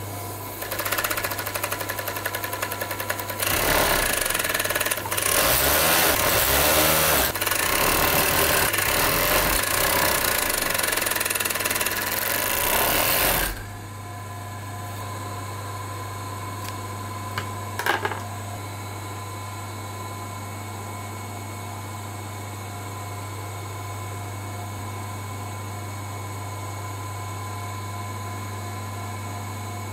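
Overlock machine (serger) stitching fabric: it runs lightly at first, then fast and steadily for about ten seconds, and stops abruptly about halfway through. A steady low hum remains afterwards, with a single short knock a few seconds after the machine stops.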